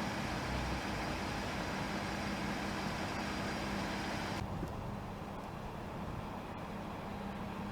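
Steady rumble of an idling motor vehicle with a low steady hum; the hiss above it drops away abruptly a little over halfway through.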